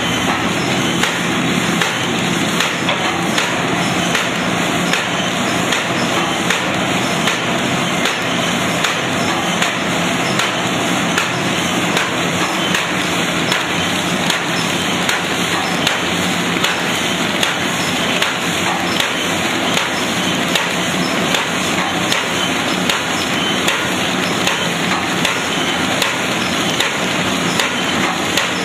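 Paper bag making machine running, a steady, rapid mechanical clatter of repeated knocks as it feeds kraft paper from the reel.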